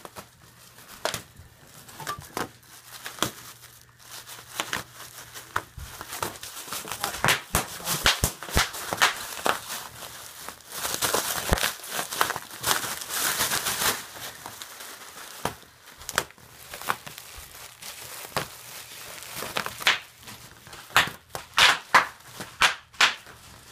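Bubble wrap crinkling, with irregular sharp pops of bursting bubbles. There is a dense run of crinkling about halfway through and a quick string of loud pops near the end.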